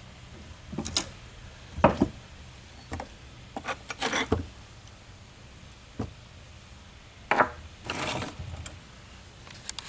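Hand tools and metal engine parts being handled during disassembly: irregular knocks, clunks and short scrapes, the loudest about two seconds in and again about seven seconds in.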